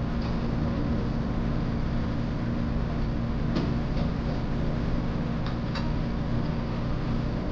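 Steady low mechanical hum of restaurant background noise, with a few light clicks of chopsticks against a dish about halfway through.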